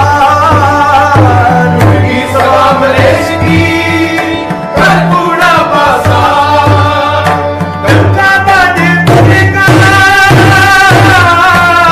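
Sikh shabad kirtan music: tabla strokes played over steady held drone tones, with a melody line that glides up and down in pitch.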